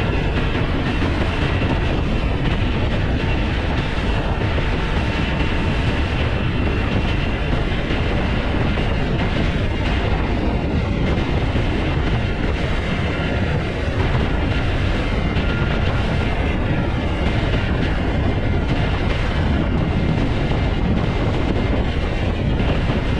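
Small motorboat under way, with its engine running and water rushing past in a steady, unbroken noise.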